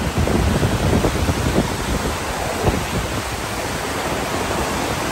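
Floodwater rushing and churning through the outflow of Yarrawonga Weir, a steady rush of water, with wind buffeting the microphone.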